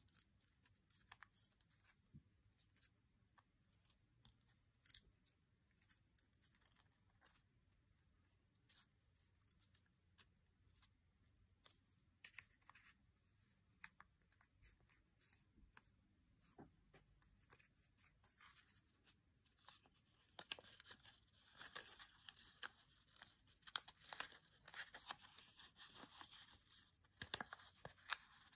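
A small 7.5 cm square of origami paper crinkling and crackling under the fingers as it is folded and creased. Scattered soft crackles at first, growing denser and louder about two-thirds of the way through as the paper is opened out and reshaped.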